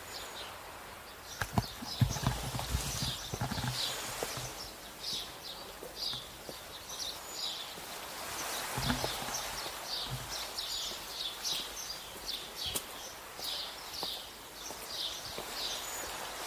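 Footsteps walking at an even pace on a hard garden path, about two to three steps a second, with a few heavier thuds early on and again around the middle.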